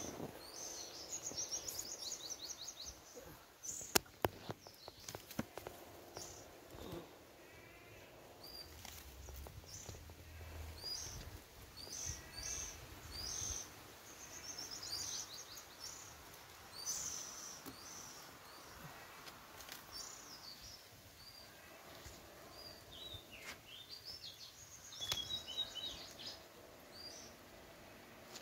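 Small birds chirping: many short high chirps and a few quick trills, repeated throughout. A few sharp knocks come about four to six seconds in.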